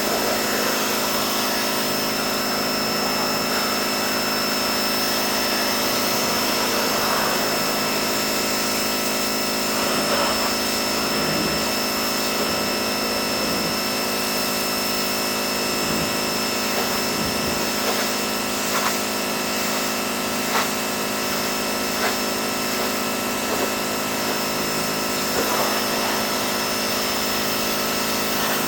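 Pressure washer running steadily: a constant machine hum over the hiss of spray, with a few brief taps in the second half.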